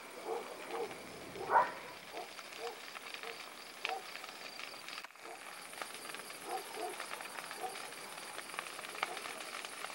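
Dogs barking in the distance, faint short barks on and off, with one louder bark about a second and a half in.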